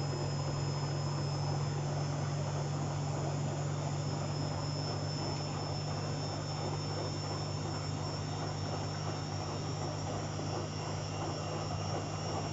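Beko washing machine running steadily, a low even hum with a faint high whine over it. The drum is on a spin that the owner says reaches only about 600 rpm instead of 800, with a sudsy load.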